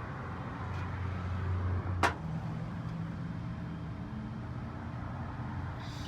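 A steady low engine-like hum, like an idling motor vehicle, with one sharp click about two seconds in.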